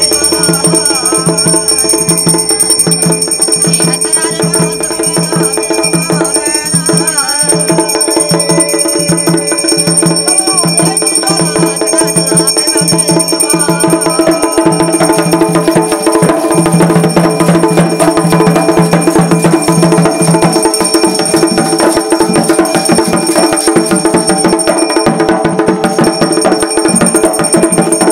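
Loud traditional music with fast, dense percussion over steady held tones.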